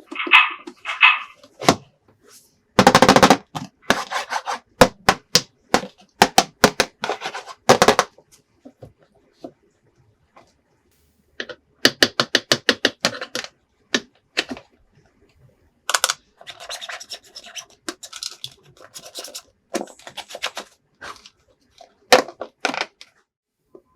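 Plastic toys being handled: a string of quick clicks and clatters in several bursts, with quiet pauses between them.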